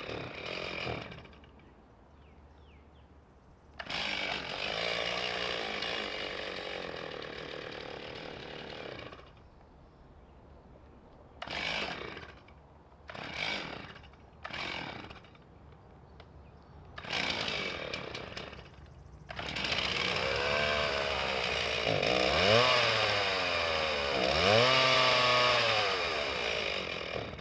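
Two-stroke chainsaw starting and stalling: it runs for about five seconds and dies, catches briefly three times, then runs again with the revs rising and falling before dropping away at the end. It is not wanting to stay running, which the owner traces to a clogged air filter.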